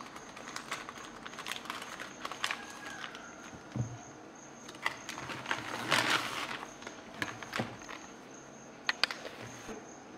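Clear plastic packaging crinkling and rustling in irregular bursts as it is handled, while a flexible vacuum hose and a cloth filter bag are unwrapped.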